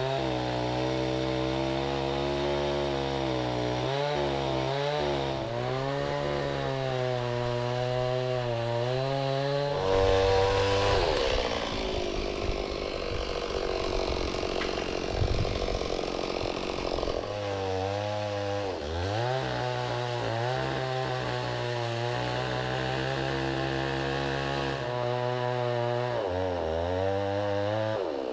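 Stihl two-stroke chainsaw cutting into a balsam fir trunk during felling. The engine pitch dips again and again as the chain bites into the wood, with a rougher, louder stretch of cutting in the middle.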